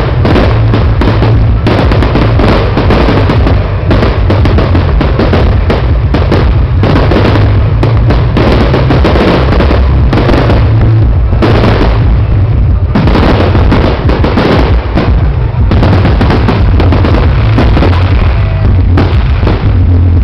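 Fireworks display: a dense, unbroken barrage of booming shell bursts and crackle, loud throughout.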